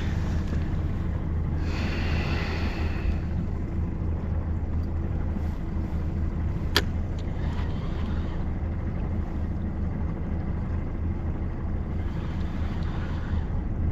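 Boat motor running steadily with a low rumble. A brief higher-pitched noise about two seconds in, and a single sharp click about seven seconds in.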